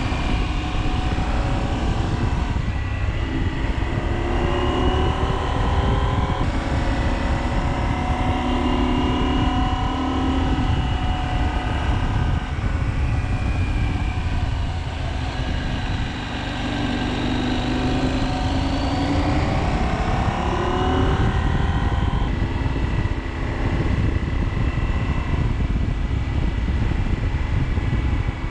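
KTM 790 Adventure's parallel-twin engine running under way, its pitch rising and falling with the throttle and jumping at gear changes, over a heavy low rumble of wind on the microphone.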